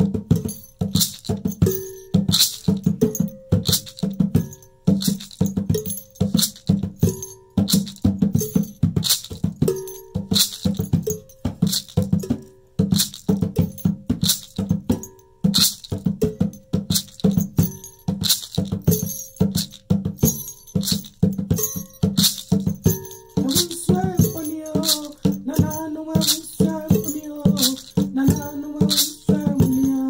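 A hand drum beaten in a fast, steady rhythm together with a rattling shaker; a voice begins singing over the percussion about 23 seconds in.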